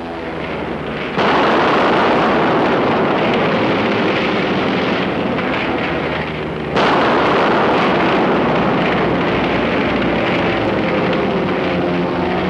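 Napalm bombs going off from a low-level air strike: a sudden blast about a second in that runs on as a heavy roar for several seconds, then a second blast near the middle that also runs on as a roar. A piston-engine plane's drone shows faintly under the roar near the end.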